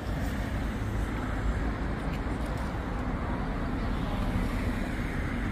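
Steady noise of road traffic passing.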